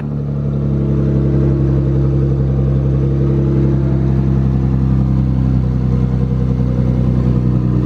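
Nissan GT-R R35's twin-turbo V6 idling steadily through a freshly fitted Tomei titanium exhaust, with no exhaust leak.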